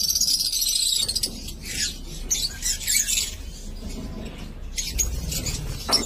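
Lovebirds chattering: rapid, high-pitched chirps coming in bursts, loudest through the first second.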